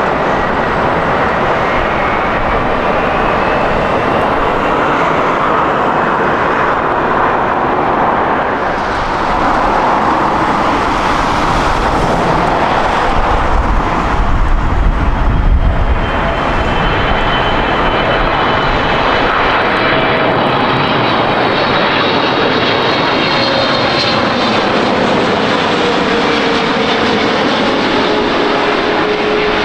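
Jet airliner engines passing close by, a loud steady rush that swells to its loudest about halfway with a deep rumble. Afterwards the engines' whine slowly falls in pitch as the aircraft moves away.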